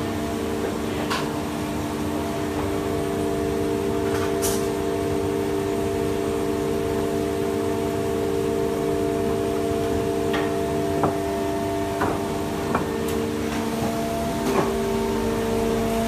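Woodworking workshop machinery running with a steady, even hum, with occasional sharp knocks and taps of timber being handled on the bench.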